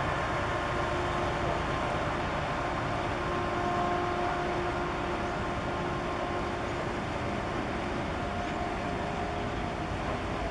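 Steady low rumble of a large cable-laying ship passing close by under power, its engines and wake churning, with faint machinery hums coming and going.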